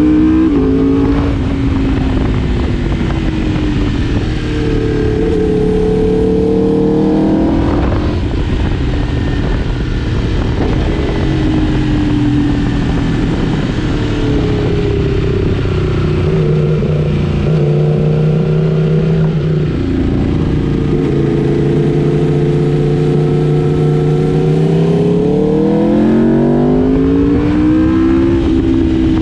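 Superbike engine running at speed, its pitch climbing under acceleration and dropping back between gear changes, over a steady rush of wind and road noise. The engine sweeps up about seven seconds in and climbs again in a long rise near the end.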